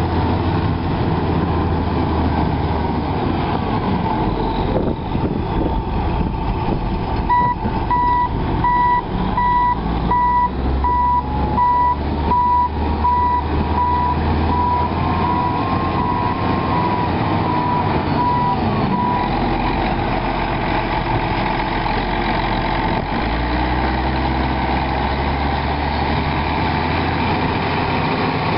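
John Deere 9420's 12.5 L six-cylinder diesel engine running. Through the middle stretch a reverse alarm beeps steadily, about once a second for some twelve seconds, showing the tractor is in reverse.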